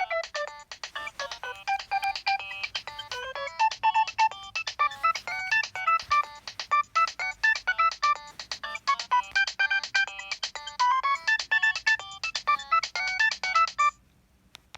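Preloaded Nokia 3120 ringtone playing: a fast electronic melody of short staccato notes that stops about fourteen seconds in, followed by a faint click.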